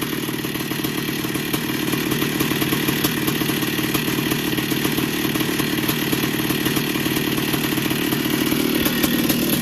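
1982 Yamaha YZ490's single-cylinder two-stroke engine running steadily just after a first-kick start. The bottom end has freshly rebuilt bearings and seals.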